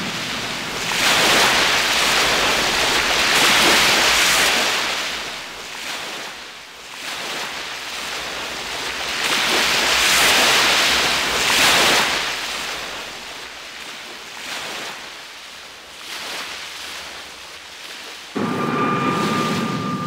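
Wind buffeting the microphone in gusts: a loud rushing noise that swells and fades twice. About two seconds before the end the sound changes suddenly to a steadier, lower noise with a thin high whine.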